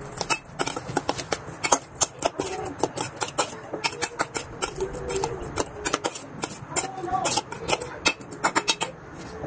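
A metal spoon clicking and scraping against a stainless steel bowl as bean sprouts are tossed with sesame oil and salt: a quick, irregular run of light taps.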